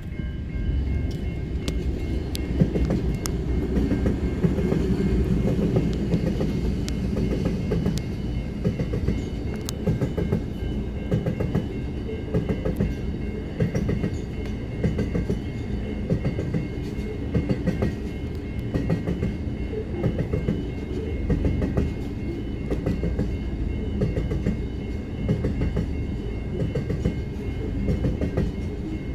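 Diesel-hauled grain freight train passing a level crossing. The locomotive goes by about two seconds in, then a long string of grain hopper wagons rumbles past, wheels clicking rhythmically over the rail joints. The crossing's warning bell rings steadily above it.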